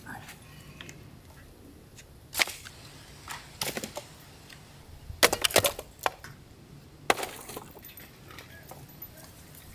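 Dry, weathered firewood clattering as it is dropped off a bicycle's carrier onto bare ground, in several sharp bursts. The loudest tumble comes about five seconds in and another follows near seven seconds.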